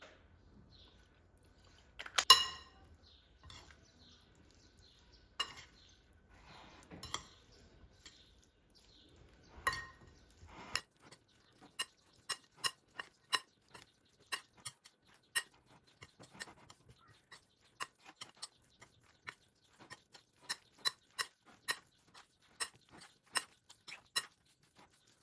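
Small knocks and clinks from objects being handled, the loudest about two seconds in, then a long run of short sharp clicks, irregular at about two or three a second.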